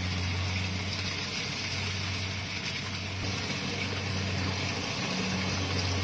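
Rice combine harvester running steadily as it cuts through the crop: a low engine hum under a constant whirring haze, growing slightly louder as the machine comes closer.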